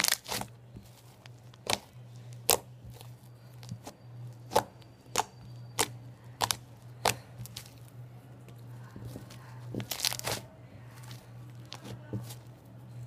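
Sticky homemade slime being handled, pulling apart from itself with sharp, sticky pops and short tearing clicks about once or twice a second, with a quick cluster of them around ten seconds in. A steady low hum runs underneath.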